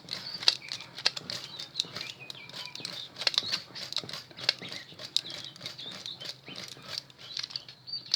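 Copper magnet wire being wound by hand into the slots of a Bosch 2-20 rotary hammer's armature: irregular sharp ticks and scratchy rustling as the wire is pulled through and slips over the slot edges.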